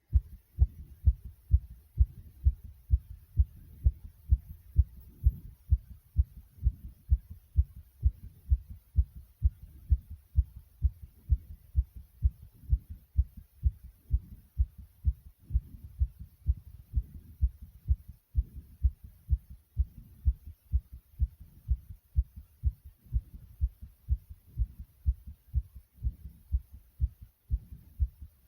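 A person's heart pounding hard: a steady, fast run of low, dull thumps, about two a second, without a break.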